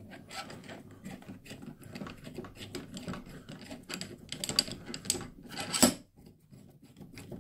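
Metal clicking and rattling as a slide-hammer bearing puller is screwed into the tapped thread of a Mińsk 125 generator rotor, with one sharper clack about six seconds in.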